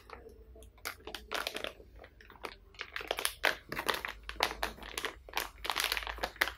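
Crinkly makeup-sponge packaging being torn and crumpled open: a run of irregular crackles, sparse at first and busier and louder in the second half.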